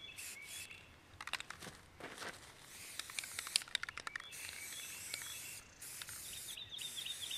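Krylon aerosol spray paint can hissing in long bursts as a base coat goes onto a deer skull, with a short break about halfway. Clusters of sharp clicks come between and during the sprays, and birds chirp in the background.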